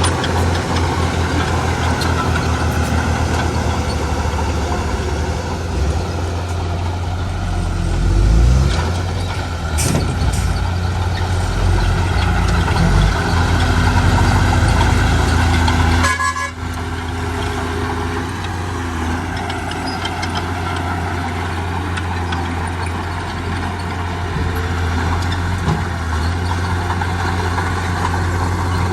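Heavy diesel construction machinery running steadily with a deep engine drone, with a louder low surge about eight seconds in and a sudden brief drop about sixteen seconds in before the drone carries on.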